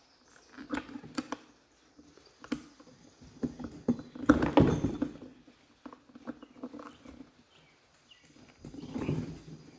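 Metal hand-tool work on a surface cleaner: an Allen key clicking and scraping in a bolt head, with scattered clicks and a longer run of scraping and knocking about four to five seconds in and again near the end.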